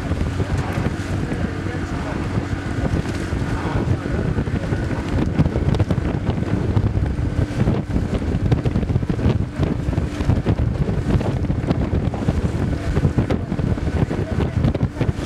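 Wind buffeting the microphone on a moving river boat, over the steady hum of the boat's motor.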